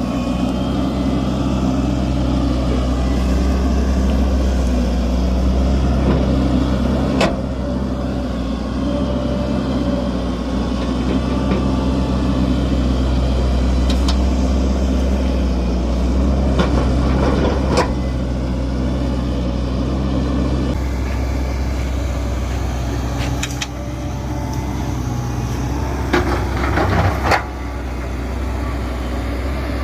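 Hitachi hydraulic excavator's diesel engine running steadily, with a few sharp knocks and clanks now and then.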